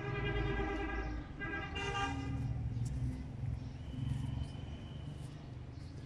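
A vehicle horn honking at one steady pitch: a long blast that stops about a second in, then a shorter one.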